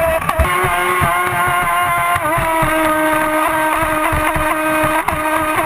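Motor of a ProBoat Impulse 31 radio-controlled speedboat running at speed with a steady high whine that dips slightly in pitch about two seconds in, over the rushing splash and slapping of the hull on choppy water.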